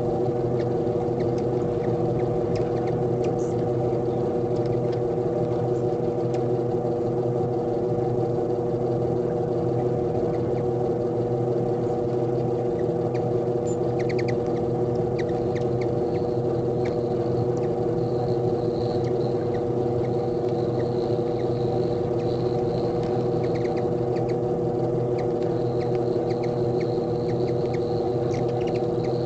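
A steady low hum made of several fixed tones, with short high chips and twitters of hummingbirds scattered over it. The chips come in a quick cluster about halfway through.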